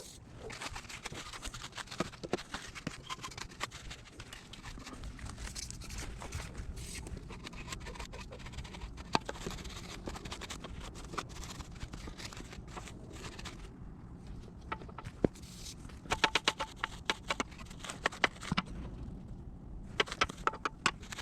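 Brush scrubbing degreaser over a dirt-bike frame: irregular scratchy strokes with many sharp clicks, busiest in clusters near the end.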